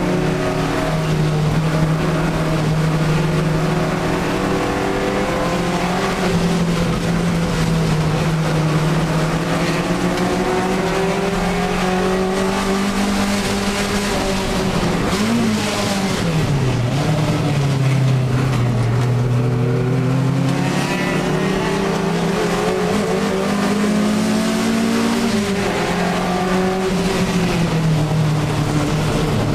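Alfa Romeo 1750 GTV's twin-cam four-cylinder engine running hard under racing load, heard from inside the cabin. The engine note holds high, jumps briefly and drops sharply about halfway through, then climbs steadily for several seconds and falls off again a few seconds before the end, as the car changes gear.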